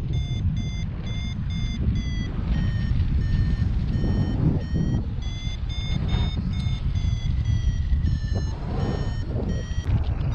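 Paragliding variometer beeping its climb tone: short beeps a few times a second whose pitch drifts lower and higher as the lift changes, the sign that the glider is going up in a thermal. Steady wind rushing on the microphone underneath.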